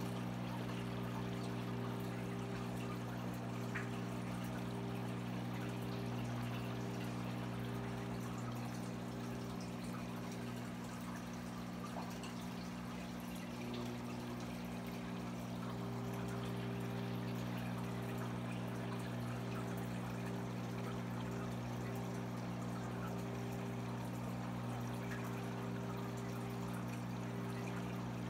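Reef aquarium's water circulation: a steady low hum, as from the tank's pump, under continuous trickling and splashing of water.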